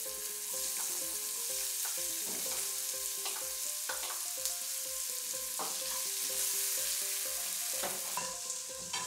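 Chopped onion sizzling in hot oil in a metal pan, with a steady hiss, while a metal spatula stirs and scrapes it around the pan.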